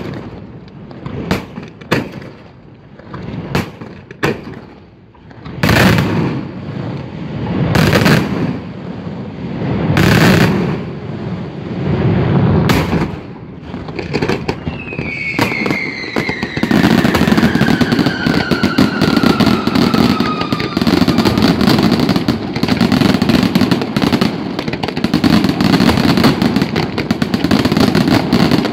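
Daytime fireworks display: loud single shell bursts a second or two apart, then about halfway through a whistling firework falling in pitch, joined by a dense, continuous barrage of rapid cracking reports that runs on at full loudness.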